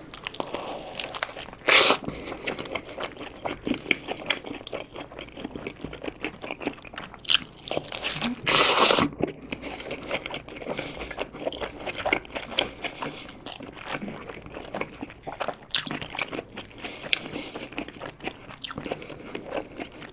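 Close-miked crunching bites into a Burger King Quattro Cheese X burger with a toasted mozzarella-topped bun and lettuce, then steady chewing with many small crackles. The loudest crunches come about two seconds in and again near the middle.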